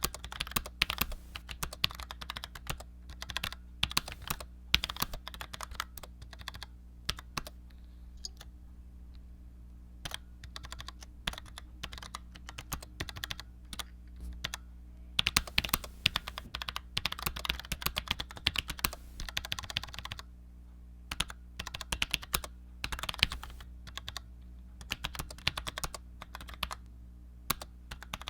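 Typing on a Cherry G84-4100 low-profile mechanical keyboard with Cherry ML switches: quick runs of key clicks broken by brief pauses, over a faint steady hum.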